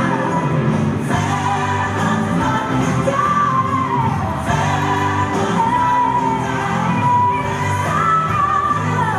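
Recorded pop song with a singing voice, the melody holding and bending notes over a steady accompaniment.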